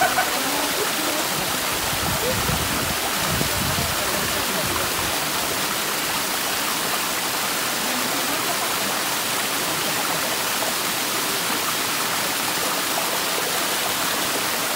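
Small waterfall pouring into a rocky pool: a steady rush of falling water.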